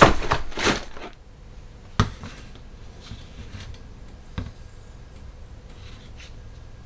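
Plastic kit bags and the paper instruction sheet rustling and crinkling for about a second. Then comes a single sharp knock about two seconds in and a lighter tap a couple of seconds later, as model parts are handled on a tabletop.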